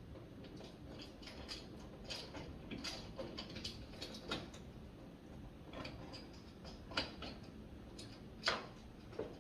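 Irregular clicks and light metallic taps of door lock hardware being fitted and screwed in by hand, with a few sharper knocks.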